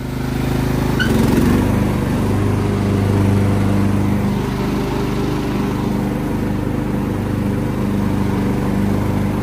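Craftsman LT1000 riding mower's 16 horsepower Kohler engine running steadily, getting louder over the first second and a half, then holding an even speed.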